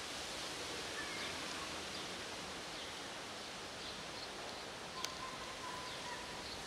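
Steady outdoor background hiss with faint, short bird chirps scattered through it. A single sharp click sounds about five seconds in, followed by a thin steady tone lasting about a second.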